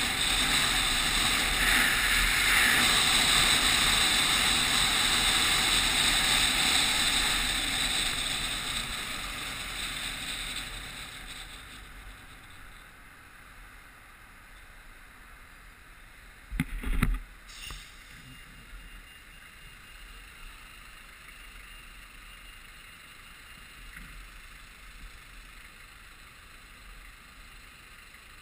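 Wind and road noise rushing over a bike-mounted action camera while riding, fading away over the first ten seconds or so as the rider slows to a stop. Then a quieter steady street background, broken about 17 seconds in by a brief loud thump.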